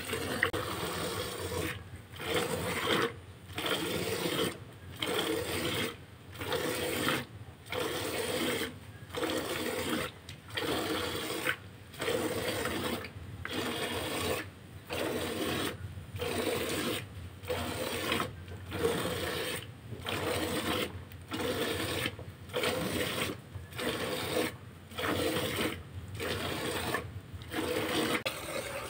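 Hand milking: streams of milk squirting from the cow's teats into a plastic bucket already holding milk, a frothy hiss that comes in pulses, breaking off briefly about every second and a half.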